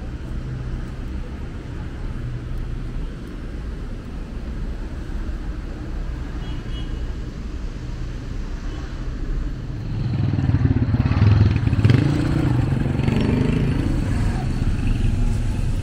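Street traffic with a steady low rumble; about ten seconds in, a motor vehicle comes close and passes, its engine noise swelling for a few seconds before easing off.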